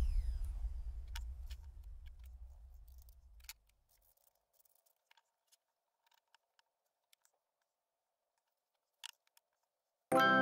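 Background music dies away over the first few seconds. Then come near silence and a few faint clicks and light taps as small wooden toy parts are handled, with a sharper click about nine seconds in. Music starts again just before the end.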